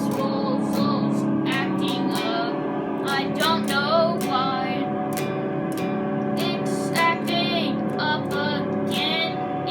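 A nine-year-old boy singing a song over a guitar accompaniment.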